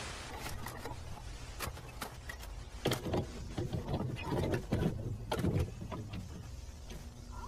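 VHS tape playback noise: a steady low hum and hiss with scattered clicks and crackles, and louder rough, whirring stretches about three to six seconds in.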